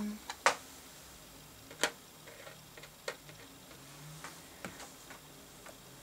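A few light, sharp taps and clicks at irregular intervals, the sharpest just under half a second in, as small polymer clay pieces and silicone molds are handled on a tabletop.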